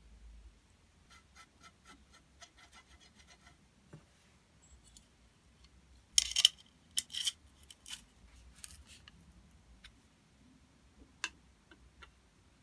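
Steel plane iron and cap iron being handled and set onto a hand plane's frog: a run of faint rapid ticks, then a cluster of sharp metal clinks and scrapes about halfway through, and one more click near the end.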